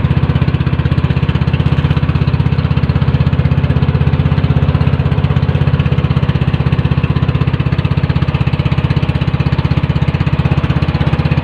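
Small fishing boat's engine running steadily at a constant speed, heard loud and close from on board.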